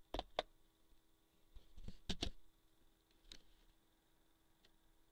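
Computer mouse button clicks: two sharp clicks near the start, two more about two seconds in and a single one a little over three seconds in, over a faint steady hum.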